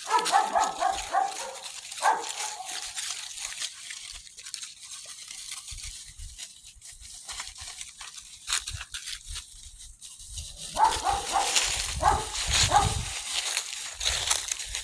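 Eight-week-old puppies yipping and whimpering in short high-pitched calls, in a run at the start and another about two-thirds of the way through.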